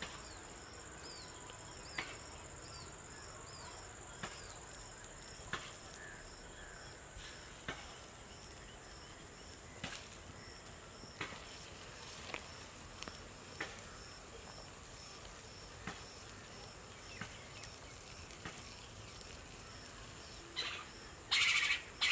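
Crickets droning steadily at a high pitch, with a short chirp repeating about three times every two seconds, and sharp clicks every second or two. A louder, harsh noise breaks in near the end.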